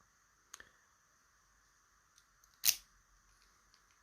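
Sharp clicks from handling a TESA T80 lock and its picking tools: a small click about half a second in, then a louder single click near the middle.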